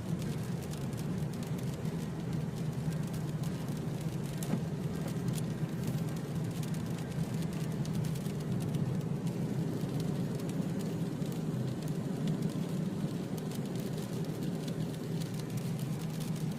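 Car driving on a wet road: a steady low rumble of engine and tyres, with scattered faint ticks.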